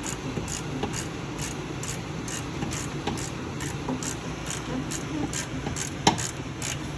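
Socket ratchet clicking in an even rhythm of about two to three strokes a second as a 19 mm shock absorber mounting bolt is run down, with one sharper metallic knock about six seconds in.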